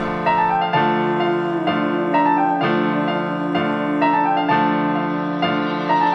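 Music: a keyboard melody, one note or chord struck about once a second over a sustained low note, with no vocals yet.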